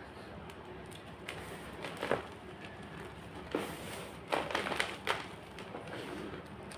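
White gym chalk being crushed, giving a few short crackly crunches about two seconds in and again in a cluster between about three and a half and five seconds in.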